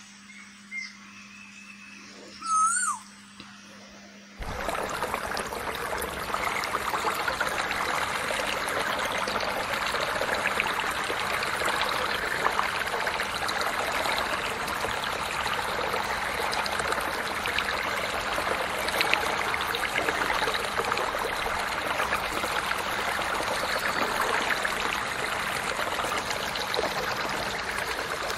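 Muddy rainwater runoff pouring over an edge into an eroded gully: a steady rushing, splashing flow that starts abruptly about four seconds in. Before it, a low hum and one short chirping call.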